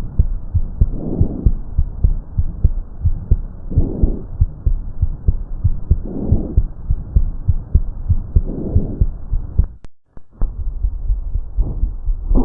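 Breath sounds heard through a stethoscope on the chest: four breaths rise and fall about two and a half seconds apart, with the heartbeat thumping underneath. The recording breaks off briefly near the end and starts again.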